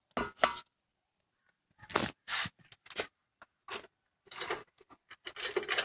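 About six short, irregular scrapes and clinks of metal hardware and tools being handled.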